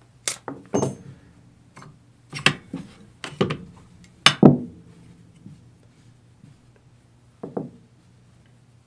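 Metal parts of a stripped AR-15 rifle clicking and knocking as they are handled and set down, in about half a dozen separate sharp knocks, the loudest a pair about four and a half seconds in.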